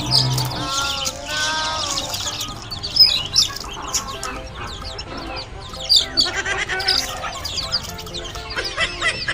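Chickens clucking and calling over background music, with sharper, louder calls about three and six seconds in.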